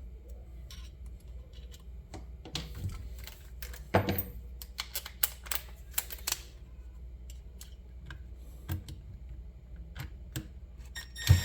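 Scattered clicks and light knocks of small metal parts being handled and fitted by hand, irregular and a few per second, with a louder knock about four seconds in and another just before the end.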